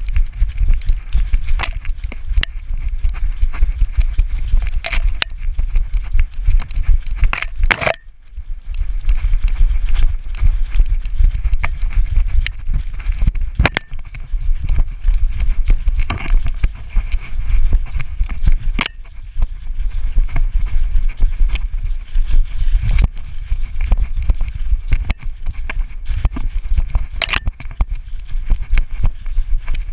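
A dog sprinting through woods, heard from a GoPro strapped to its back: a heavy, jolting low rumble with a dense run of irregular knocks and crackles from pounding paws, leaf litter and the jostled camera mount. It eases briefly about eight seconds in, then picks up again.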